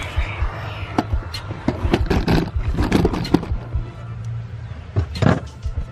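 Plastic interior trim shelf being pulled loose and lifted out: a run of clicks and knocks, with scraping about two to three seconds in and again near the end.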